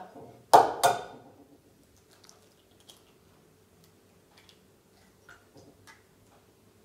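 A hen's egg cracked open with two sharp taps against a rim, followed by faint scattered clicks of the eggshell halves as the yolk is tipped between them to separate it from the white.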